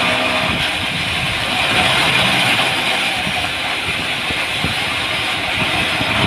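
A heavy construction vehicle's diesel engine running steadily, with a strong even hiss over a low rumble.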